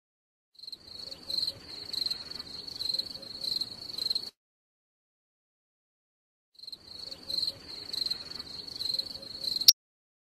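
Cricket chirping sound effect, a high pulsing trill that plays for about four seconds, stops dead, then plays again for about three seconds and is cut off by a sharp click.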